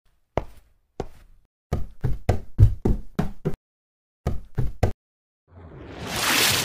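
Sharp knocking sound effects: two single knocks, then a quick run of them about five a second, then three more. Near the end comes a whoosh that swells and fades.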